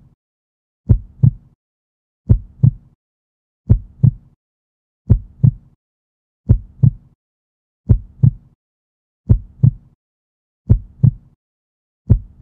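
Heartbeat sound effect: paired lub-dub thumps, the second of each pair a little louder, repeating steadily about every one and a half seconds.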